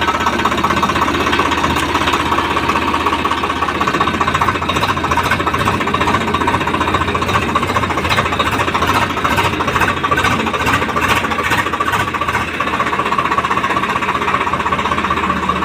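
Swaraj 855 tractor's diesel engine running loud and steady through its exhaust silencer, with a rapid, even exhaust beat.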